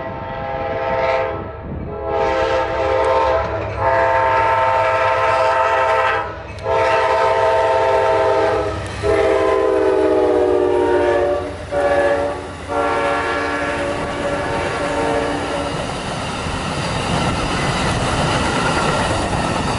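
Amtrak passenger train's GE P42 diesel locomotive sounding its multi-note horn in a series of long blasts, with short gaps between them, to warn a grade crossing as it passes at track speed. The horn chord drops in pitch as the locomotive goes by. After the horn stops, a steady rumble and clatter of the passenger cars' wheels on the rails takes over.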